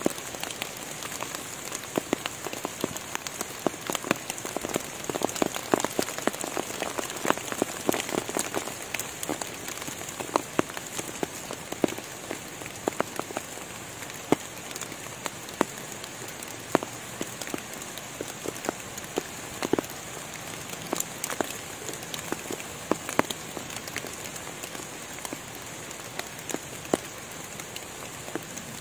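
Rain falling through the forest canopy onto leaves and leaf litter: a steady hiss studded with irregular heavy drops striking leaves, busiest in the first half, over a steady high-pitched drone.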